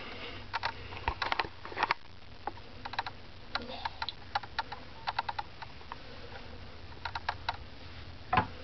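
A series of irregular light clicks and taps, some single and some in quick clusters of two to four, over a faint steady room hum.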